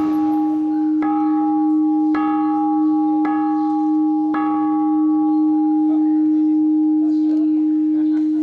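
Burmese pagoda bell struck five times about a second apart, each strike a bright clang over a steady low ringing tone that keeps sounding between and after the strikes.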